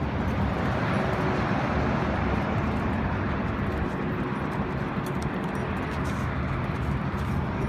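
Steady rumble of a car moving slowly on a dirt track, engine and tyres running evenly.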